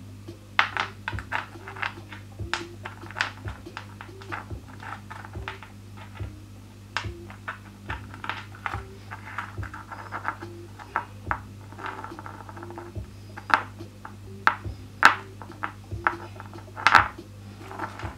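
Irregular sharp clicks and taps of wet rough opal stones knocking against each other as they are handled and set down, the loudest near the end. Background music with a steady, soft beat and a low hum runs under them.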